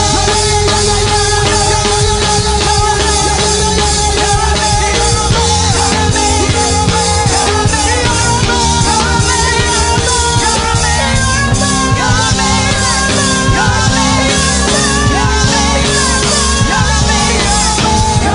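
Loud live gospel praise-break music: a band playing a fast, driving beat with held chords, and voices singing over it.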